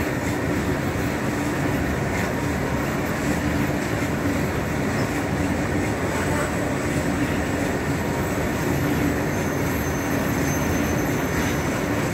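Steel wheels of a long freight train of open wagons rolling past on the rails close by: a steady rumble and rattle with a low hum running through it.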